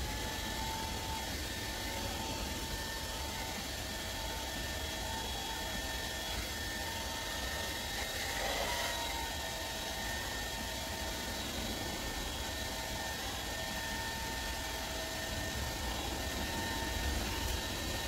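Handheld hair dryer running steadily, blowing air over alcohol ink on paper: an even rush of air with a steady motor whine. The sound briefly wavers around the middle.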